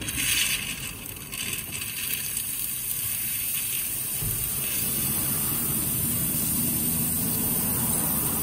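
Steady hissing spray from a flushing wand pushed up into an engine's oil filter housing, jetting cleaner through the oil passages. It starts suddenly and is loudest in the first second.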